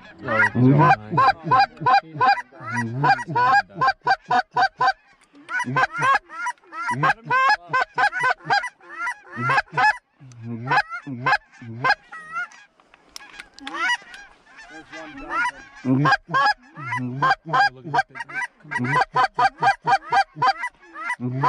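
Hand-blown goose call working a flock: a fast, loud run of clucks and honks in quick bursts, with short pauses between strings of notes.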